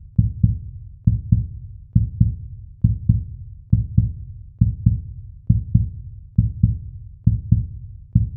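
Heartbeat sound effect: steady paired low thumps, lub-dub, a little under one pair a second, about ten beats in all.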